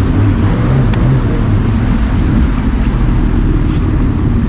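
Sea-Doo jet ski engines running steadily, with water churning around the hulls.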